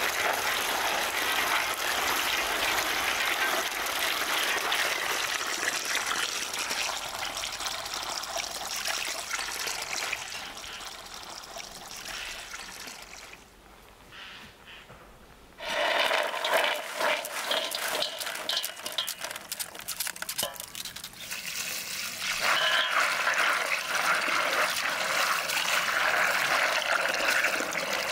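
Water from a garden hose pouring and splashing into a metal basin full of rosehips. The rush drops away for a few seconds about halfway through, then returns with a more splashy sound.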